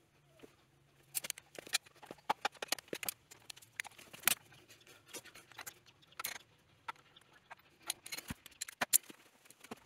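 Irregular clicks and light metallic taps, with a few louder knocks, from hands and tools working on an opened-up single-cylinder motorcycle engine.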